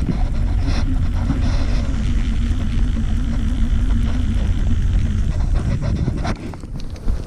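Small fishing boat's motor humming steadily, dying away about five seconds in, under a heavy low rumble of wind on the microphone.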